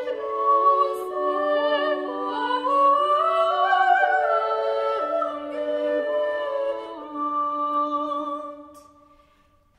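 Medieval or Renaissance early music: a singing voice over held instrumental lines, the melody rising and falling back mid-phrase. The piece ends on a held final chord that dies away near the end.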